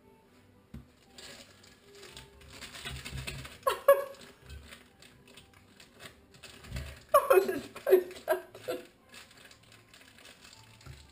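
A woman laughing in short bouts, once about four seconds in and again in a run of several laughs around seven to nine seconds, over the rustling and clicking of a plastic piping bag being filled with icing from a spoon.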